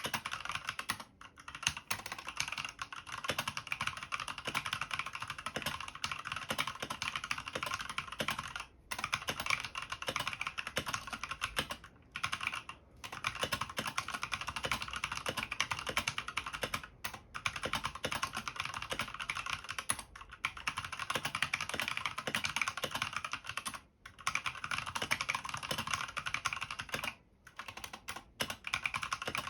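Fast continuous typing on a Skydigital BT61 61-key mechanical keyboard with stock red linear switches, a dense stream of key clacks broken by short pauses every few seconds.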